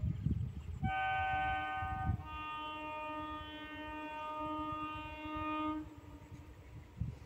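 Horn of an approaching 12-coach ICF-built EMU local train sounding twice: a short blast about a second in, then a longer blast of about three and a half seconds on a different chord. A low rumble is heard at the start.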